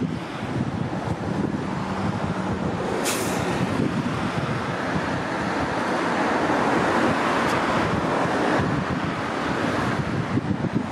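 Road traffic passing on a multi-lane highway: cars and a bus go by with a steady tyre-and-engine rush that swells to a peak about halfway through. Strong wind buffets the microphone, and there is a brief sharp hiss about three seconds in.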